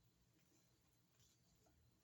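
Near silence: room tone, with a few faint short ticks.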